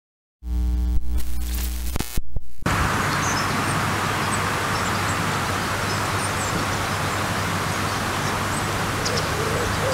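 A short low droning swell, then from about two and a half seconds in a steady rushing outdoor noise with a few faint high chirps.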